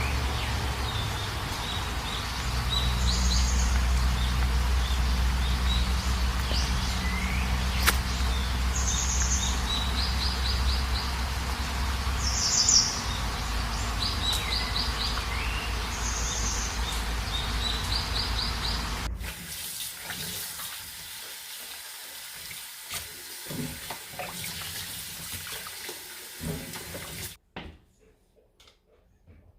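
Small birds chirping and trilling again and again over a steady low rumble. About two-thirds of the way through, this gives way to a steady hiss with a few light knocks, which cuts off near the end.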